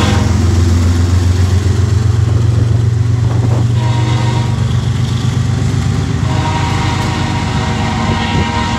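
BNSF diesel freight locomotives passing close, their engines running with a loud low rumble as the rear units go by. The train's K5HL five-chime air horn cuts off at the start and sounds again about six seconds in from the head end.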